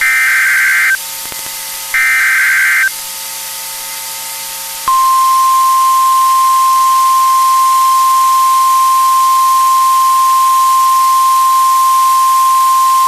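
NOAA Weather Radio Emergency Alert System broadcast: two short, screeching bursts of SAME header data about two seconds apart, then, after a pause, the steady 1050 Hz warning alarm tone sounding without a break, all over radio static hiss. The sequence is the sign of a warning about to be read, here a tornado emergency.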